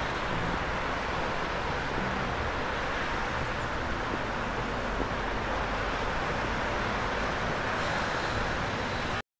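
Steady outdoor background rush with no distinct events, cutting off suddenly near the end.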